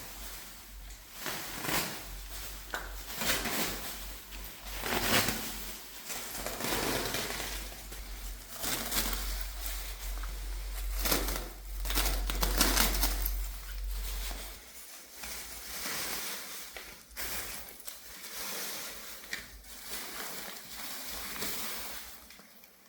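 Hand tools scraping and rubbing on a hard floor in uneven strokes, some louder than others. A low rumble underneath stops about two-thirds of the way through.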